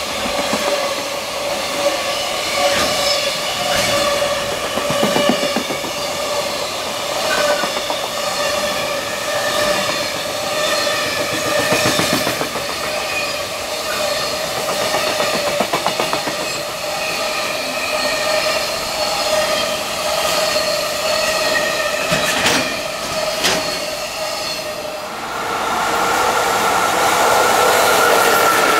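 Freight container train passing at speed, its wagons clattering over rail joints with a steady ringing tone from the wheels and rails. Near the end the sound changes to a brighter, louder train noise.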